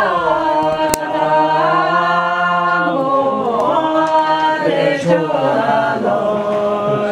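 Unaccompanied singing voices holding long notes that slide slowly up and down.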